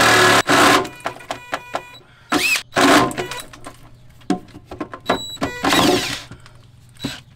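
DeWalt 20V cordless drill pushing a bit up into the van's metal floor, starting and stopping in a string of short bursts with quieter gaps between. The stop-start running comes just before the battery is found dead.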